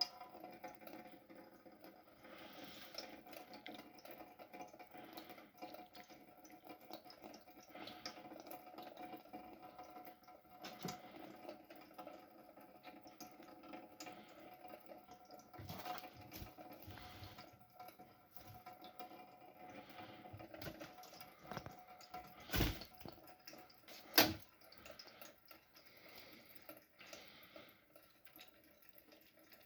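Water from a running tap trickling and dripping into a small basin, faint and steady, with small splashes and ticks. Two sharp knocks come about a second and a half apart, well into the second half.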